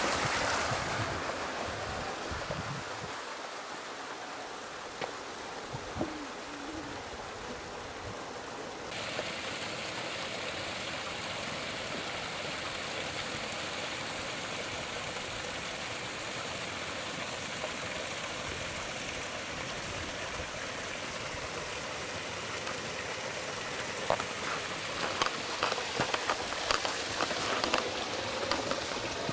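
Water pouring from the spouts of a stone village fountain and running off, a steady splashing rush. A run of short sharp clicks comes near the end.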